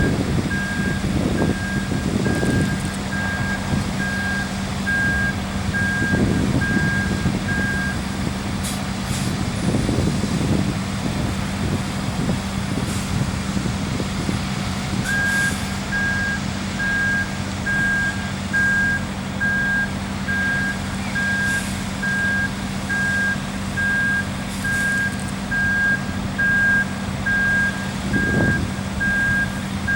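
Ready-mix concrete truck's diesel engine running steadily, its reversing alarm beeping about once a second; the beeping stops for several seconds partway through, then starts again. A few brief knocks sound over the engine.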